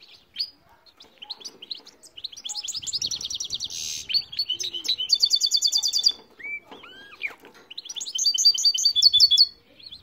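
Goldfinch × canary hybrid (mule) singing: phrases of fast trills and twittering, with a few slurred, looping whistles a little past halfway.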